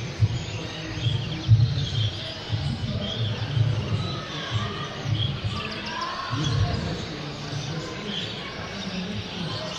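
Caged canaries chirping and twittering in scattered short calls, over irregular low thumps and a faint murmur of voices.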